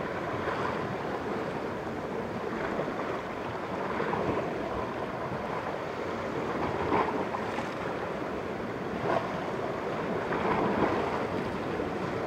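Sea waves washing against the rocks at the foot of the cliff, with wind on the microphone. The water swells up and falls back several times.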